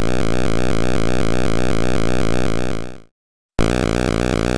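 Synthesized helicopter sound effect: a steady electronic buzz with a fast, regular chopping pulse, fading out about three seconds in. After half a second of silence, a second, similar synthesized helicopter sound starts abruptly.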